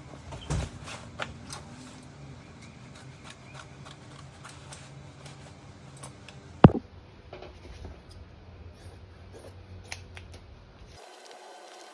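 Cut fabric panels being handled and shuffled on a cutting mat: light rustling and scattered small clicks, with one sharp knock about six and a half seconds in. A steady low hum underneath stops abruptly near the end.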